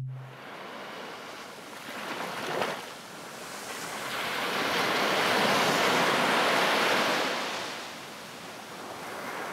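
Ocean surf washing up a beach, a wave rushing in and foaming around a rock. A small rush comes about two and a half seconds in, then a bigger wash swells to its loudest midway and eases off near the end.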